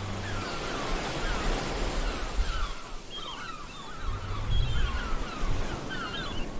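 Ambient outro music track: a steady rain-like hiss with repeated short, bird-like chirps and a few low held bass notes, the bass coming in again about four seconds in.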